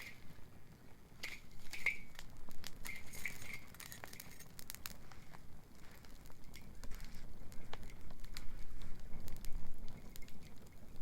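Wood bonfire crackling, with irregular sharp pops and snaps of varying strength over a low steady rush. A few short high chirps sound in the first few seconds.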